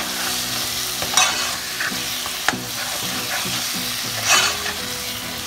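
Potato chunks sizzling in hot tomato-onion masala as they are stir-fried, a metal spoon scraping against the aluminium pot with a few louder strokes.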